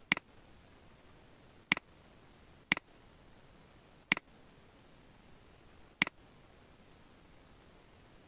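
Five sharp clicks of a computer mouse button, irregularly spaced one to two seconds apart, over a faint steady hiss.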